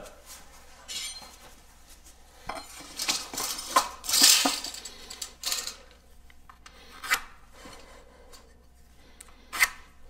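An aluminium speed square clinking and sliding on 2x4 lumber, with a pencil scratching lines along its edge to mark stud positions. The sound is scattered clicks and scrapes, the longest scrape about four seconds in.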